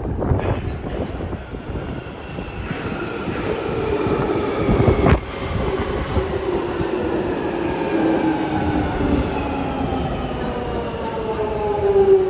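London Underground Jubilee line 1996 Stock train slowing as it runs into the platform: its traction motors whine in several tones that fall steadily in pitch, with a sharp clank about five seconds in.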